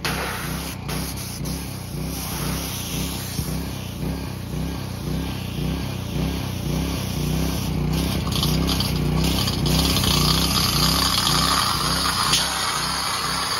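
Pressure washer running with a steady, pulsing drone, its jet hissing and spattering against a car's bare steel floor pan and carpet. The spray grows louder and harsher about two-thirds of the way through.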